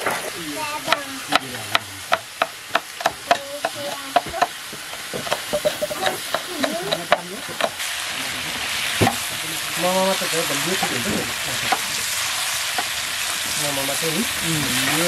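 Pork frying and sizzling in a pan while it is stirred. For the first several seconds a utensil clinks sharply against the pan about twice a second, then the stirring gives way to steadier sizzling.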